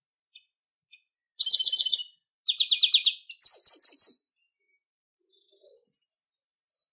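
Chestnut-capped blackbird (garibaldi) singing: three loud phrases of rapid trilled notes, each about a second long, the last made of quick downward-sweeping notes, after two faint chips, with a few soft calls near the end.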